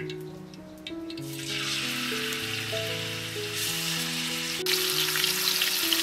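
Pork slices sizzling in hot oil in a wok, the sizzle starting about a second in and getting louder in steps.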